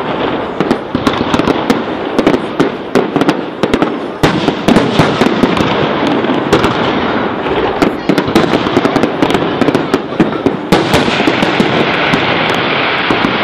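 Large aerial fireworks display: rapid, overlapping bangs and crackles of shells bursting overhead over a continuous rumble, thinning out near the end.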